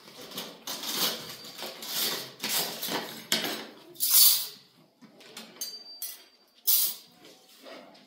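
A run of irregular clattering knocks and scrapes, as of hard objects being handled and set down, the loudest about four seconds in, with a brief thin high tone near six seconds.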